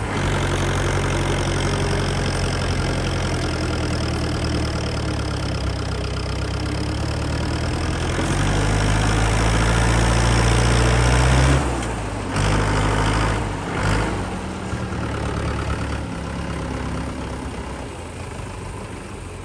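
Mahindra 475 DI tractor's four-cylinder diesel engine running under load as it tows a loaded trolley through deep water. The engine note grows louder about eight seconds in, drops suddenly a few seconds later, and eases off toward the end.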